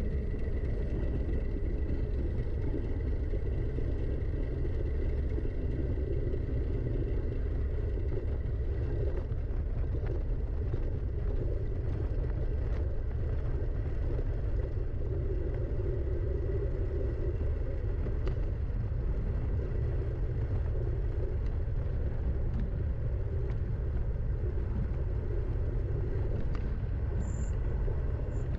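Steady low wind rumble buffeting the microphone, with tyre and trail noise from riding downhill on a forest trail and scattered short clicks and rattles.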